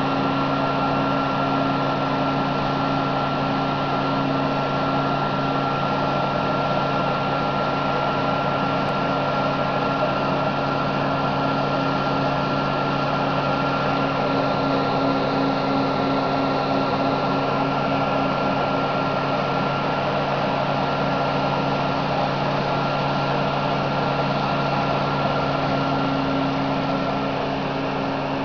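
Hemp-lime spraying rig running steadily as the mix is blown through the hose and out of the nozzle: a constant machine hum and whine over a loud hiss of air and spray.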